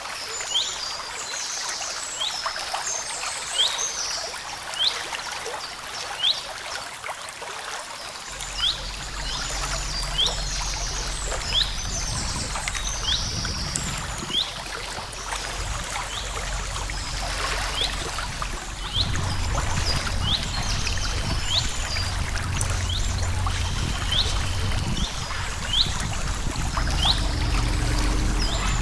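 Birds singing, one repeating a short sharp chirp about once a second among bursts of buzzy trills, over the steady trickle of flowing creek water. A low rumble comes in about eight seconds in and grows stronger about nineteen seconds in.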